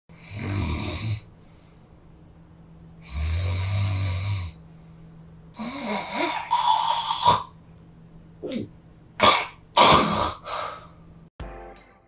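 A man snoring. First come two slow nasal snores, each about a second long with a low buzz, the kind made when the nose is blocked. From about halfway come harsher, uneven throat snores of varying length, the kind made when the throat is blocked.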